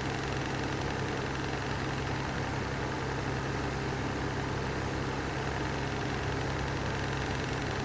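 Lanson style 3 exhaust fan running steadily with a low hum; its bearings are bad and need replacing.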